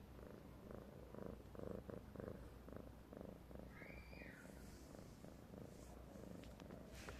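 A cat purring softly, in an even rhythm of pulses with each breath.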